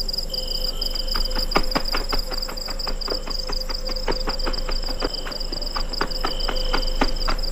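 Steady, high-pitched insect trilling, with a run of irregular sharp clicks and snaps from about a second in.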